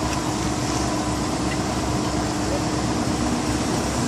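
Mobile crane's diesel engine running steadily under load, an even mechanical hum with a low held tone.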